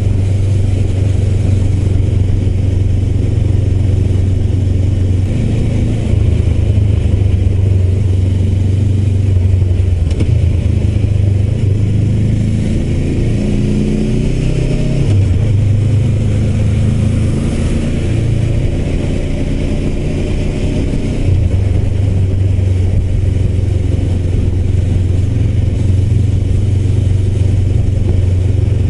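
Honda CBR400R's parallel-twin engine running as the motorcycle is ridden. The note holds steady, rises and falls around the middle with a short revving climb, then settles back into steady cruising.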